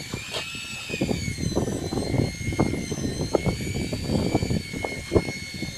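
A boat's motor runs steadily with a high, slightly wavering whine. Short knocks and thumps sound over it, the loudest about five seconds in.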